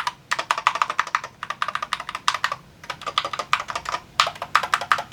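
Typing on an Akko TAC75 HE keyboard with magnetic switches: fast, clacky keystrokes in bursts of about a second with short pauses between them.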